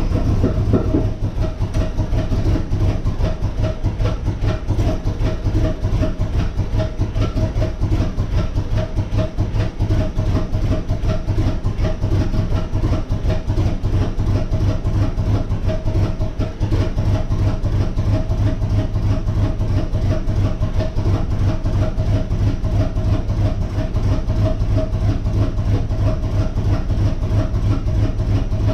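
A 1994 Corvette's LT1 V8 idles unevenly with a lumpy, stumbling beat, just after a fresh Optispark distributor was fitted. The uneven idle is the misfire and hesitation that the new distributor has not cured.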